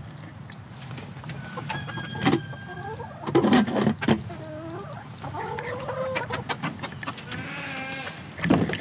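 Chickens clucking and calling, loudest a few seconds in, with several drawn-out pitched calls in the second half.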